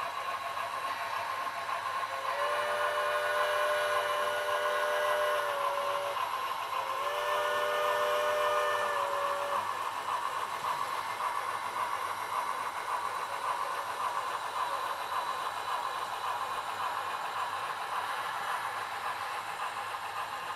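Two long steam-whistle blasts, each a multi-note chime that sags slightly in pitch as it cuts off, from an HO-scale model steam locomotive's sound unit. A steady hiss and clatter of the running model train continues underneath.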